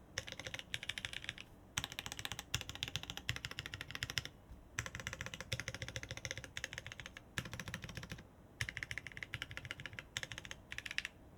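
Fast, even clicking in runs of one to three seconds, broken by brief pauses about four times.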